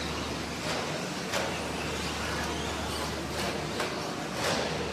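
Radio-controlled racing trucks running on an indoor dirt track: a steady whirr of motors and tyres over a low hum, with a few sharp clacks, the loudest about three and a half and four and a half seconds in.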